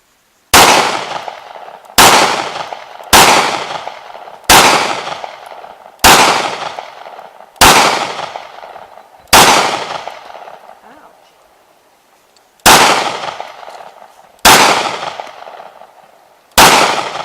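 Ten shots from a Smith & Wesson M&P 9mm pistol, fired at an uneven pace about one to two seconds apart, with a longer pause before the last three. Each report rings out and fades over about a second.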